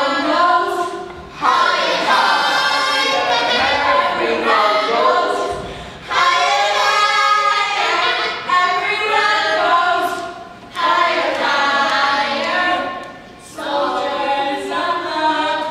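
A group of voices singing together unaccompanied, in held phrases with short breaks between them.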